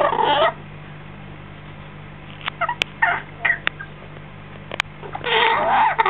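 African grey parrot chick calling: a short call at the start, a cluster of brief squeaks about halfway with two sharp clicks, and a longer, whining call near the end.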